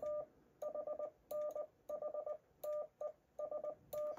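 Morse code sidetone from a Yaesu FTDX10 transceiver: a single steady-pitched tone keyed on and off in dots and dashes, sending the station ID "N4HNH TEST".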